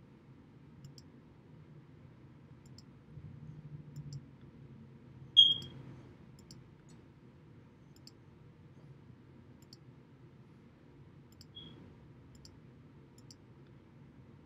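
Faint ticks about once a second over a low room hum. About five seconds in comes a short, sharp, high-pitched click, the loudest sound, and a softer one comes near the end.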